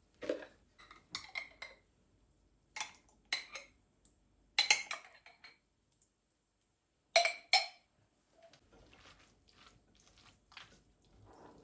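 Kitchenware being handled and set down: a series of sharp clinks and knocks, a few of them loud, then softer rustling and light handling noises over the last few seconds.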